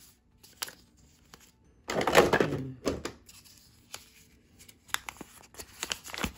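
Hands handling the plastic earmuff headset and its packaging: scattered clicks and knocks, with a louder rustle about two seconds in.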